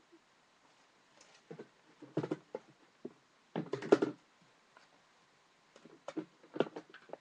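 Small hamster-supply items being picked up off a carpeted floor and put away by hand: four short bursts of knocks and handling rustle, the loudest about four seconds in.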